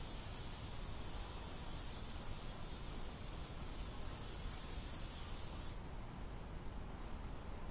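Aerosol spray adhesive hissing steadily as it is sprayed under lifted upholstery batting, cutting off sharply about six seconds in.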